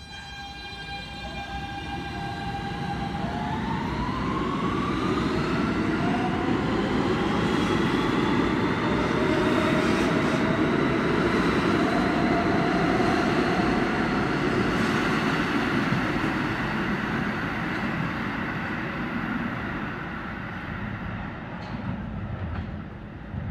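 An R160 subway train's electric propulsion accelerating away from a stop. A stack of whining tones rises in pitch over a few seconds, over a heavy rumble of wheels on rail that builds to a peak about halfway through and then fades.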